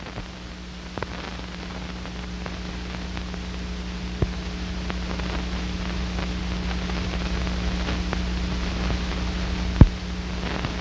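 Hiss and a steady low hum from an old film soundtrack, slowly growing louder, with a few sharp crackling clicks.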